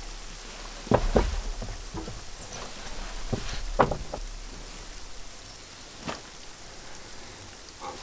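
A few irregular knocks and taps from things being handled under a cabin's wooden eaves. The loudest are two close together about a second in and one near four seconds, over a steady faint hiss.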